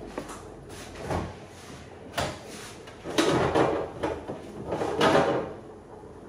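Refrigerator opened and things on its shelves handled: a couple of knocks, then a few seconds of clattering and rummaging that dies away near the end.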